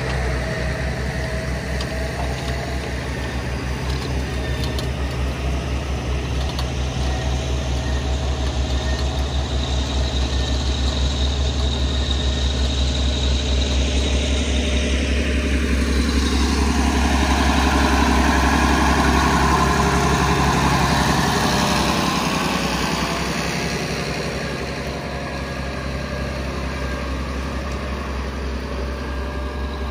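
Diesel tractor engine running steadily under load while pulling a reversible mouldboard plough through soil. It grows louder about halfway through as the tractor comes closest, then eases off.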